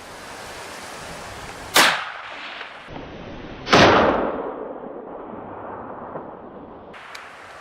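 Two loud gunshots from a hunting gun, about two seconds apart, the second trailing off in a long rolling echo, over steady wind noise.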